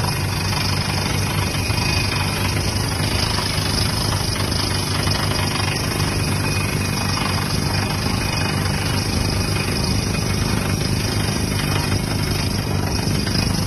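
Truck-mounted water well drilling rig running steadily: a constant heavy engine note under a dense mechanical clatter and hiss.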